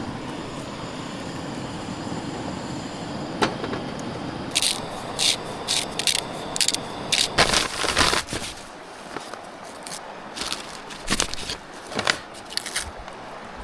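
A steady hiss for the first few seconds, then a run of irregular sharp clicks, knocks and scrapes from handling cooking gear and food at a camp stove.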